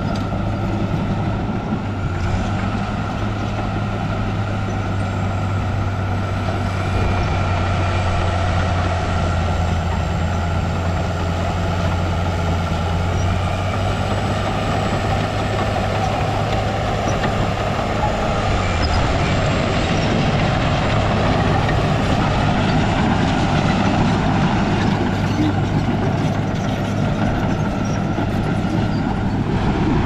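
Heavy diesel earthmoving machinery running steadily, a low engine drone with a thin steady whine above it.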